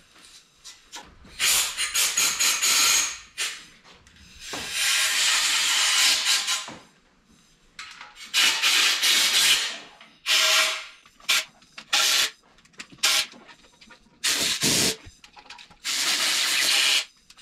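Repeated hissing bursts of a pressurised spray, about eight of them, each up to about two seconds long, starting and stopping sharply with short pauses between.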